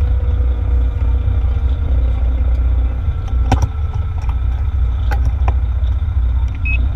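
Fire engine on the move, its diesel engine and road noise a steady low rumble, with a few sharp clicks past the halfway mark.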